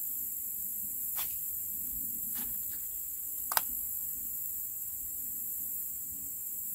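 Steady high-pitched insect chorus, with a few sharp clicks or knocks, the loudest about three and a half seconds in.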